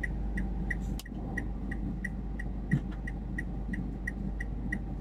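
A car's hazard-light flasher ticking steadily, about three ticks a second, over a low steady hum inside the car, with one soft thump a little past halfway.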